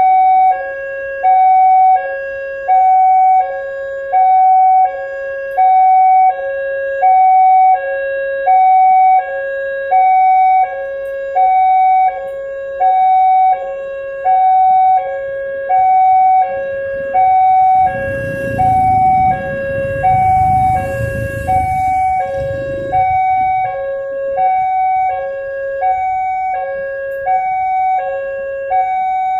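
Railway level-crossing warning siren sounding a two-tone hi-lo alternation, one high and one low tone roughly every second and a half, the crossing's warning that a train is approaching. About 18 seconds in, a low rumble with hiss swells and fades over about five seconds as something passes close by.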